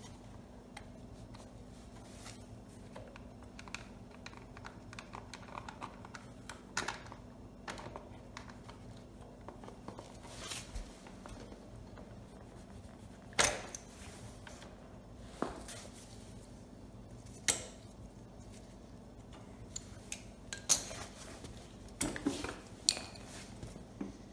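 Scattered clicks, clacks and rattles of plastic and metal parts being handled as the air cleaner housing and carburetor linkage of a Kohler Courage XT-7 engine are taken apart, with a few sharper knocks, over a faint steady hum.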